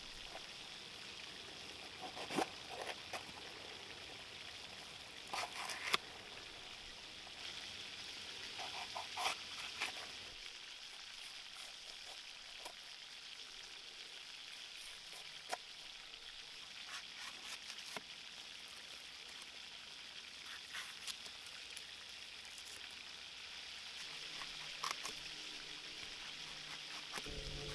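Food frying over a campfire: a faint, steady sizzle with scattered crackles and pops. Music comes in right at the end.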